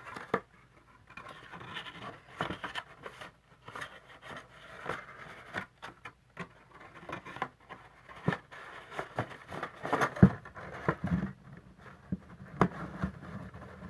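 Cardstock and paper being handled: rustling and scraping with many light taps and clicks as a paper craft box is fitted with its lid and taped, with one sharper knock about ten seconds in.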